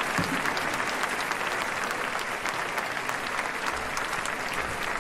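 Large audience applauding steadily, a dense even patter of many hands clapping.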